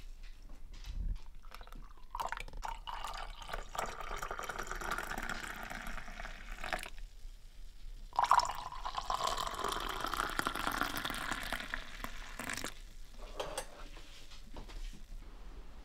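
Hot coffee poured from a pot into two ceramic mugs, in two separate pours of several seconds each, with a few light clinks around them.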